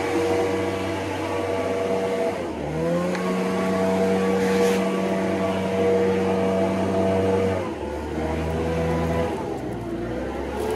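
Leaf blower running with a steady rush of air over a motor hum. Its pitch dips and comes back up about two and a half seconds in as the throttle is eased, then steps down twice in the last few seconds.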